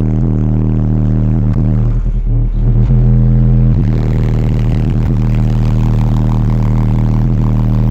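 Car audio subwoofers playing very loud, distorted bass notes, holding steady low pitches that step to new notes a few times.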